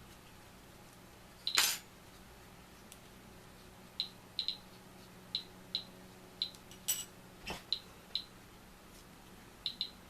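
Small metal and glass lens parts and tools clicking and clinking as they are handled on a workbench: many short, sharp ticks, often in pairs, with louder knocks about a second and a half in and twice around seven seconds.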